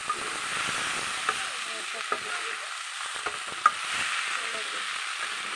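Noodles and vegetables stir-frying in oil in a metal kadai: a steady sizzle, with a spatula knocking against the pan a handful of times, loudest about three and a half seconds in.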